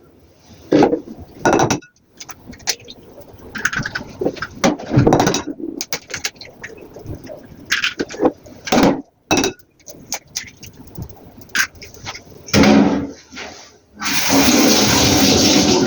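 Eggs being cracked and broken into a large mixing bowl: a series of sharp knocks and taps with handling sounds. Near the end comes about two seconds of loud, steady rushing noise.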